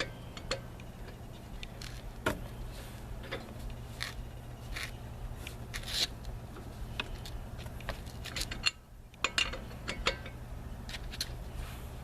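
Metal lug wrench clicking and scraping on a wheel's lug nuts in scattered, irregular strokes as the nuts are double-checked for tightness after a tire change.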